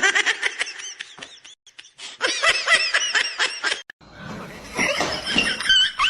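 A person laughing in a run of short, repeated pitched bursts that stops abruptly about four seconds in; a different wavering high-pitched sound follows near the end.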